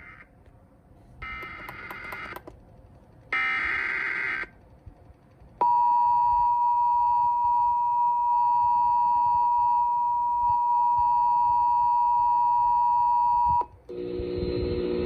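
Emergency Alert System transmission: two short screeching bursts of SAME header data about a second apart, then the two-tone attention signal, a steady dual tone held for about eight seconds. The tone cuts off suddenly near the end, and a lower, buzzier sound starts.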